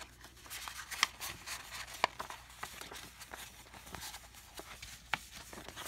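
A paper scroll being rolled up by hand: light rustling and scattered crackles of the paper, with two sharper crackles about one and two seconds in.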